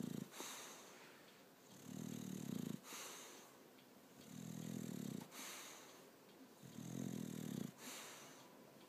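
A sleeping bulldog snoring in a slow, even rhythm: a low buzzing snore about every two and a half seconds, each followed by a short hiss of breath.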